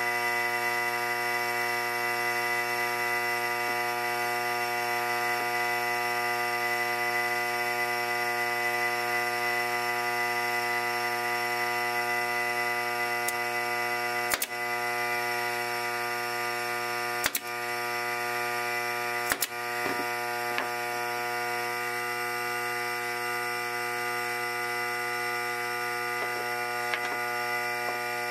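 A pneumatic brad nailer fires a few sharp shots into plywood, two to three seconds apart around the middle, over a steady hum.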